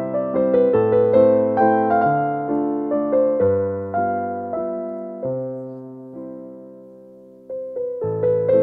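Background piano music: a slow melody over soft chords, with one chord left to fade for a couple of seconds past the middle before the playing picks up again.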